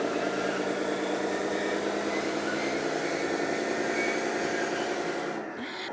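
JDM-98 DXR2 1/14 scale hydraulic RC bulldozer running, with a steady, pulsing engine-like drone that dips slightly near the end.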